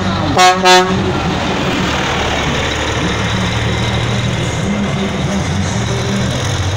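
Truck horn sounding two short blasts in the first second, the loudest sounds, followed by a truck engine running steadily.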